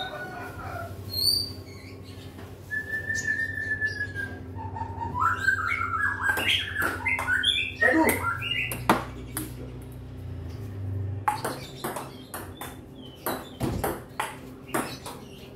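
Table-tennis ball clicking off paddles and the table in a rally, the clicks coming thick and fast in the second half. High whistle-like chirps and a stepping whistled phrase sound over it in the first half, above a steady low hum.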